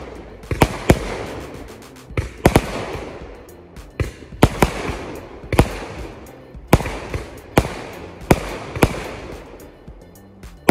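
Asok Euphoria 120-shot repeater cake firing: heavy launch thumps and bursts about once or twice a second, with crackling between them.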